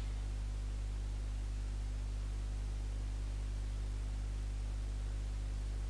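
Steady low electrical hum with a faint hiss underneath, unchanging throughout: background noise of the recording, with no other sound.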